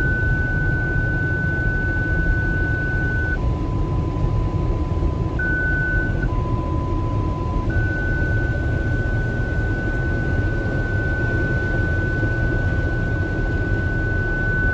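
Automatic car wash heard from inside the car: a steady rush of water spray and wash machinery against the bodywork. Over it the car's parking sensors sound a continuous warning tone, set off by the wash equipment close around the car. The tone drops to a lower pitch twice for a second or two midway, then returns.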